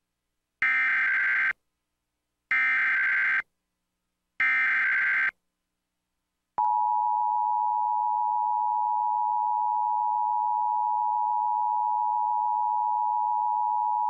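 Emergency Alert System activation for a tornado warning: three identical bursts of SAME header data tones, each about a second long with a second's gap between them, then the steady two-tone EAS attention signal (853 and 960 Hz), which starts about six and a half seconds in.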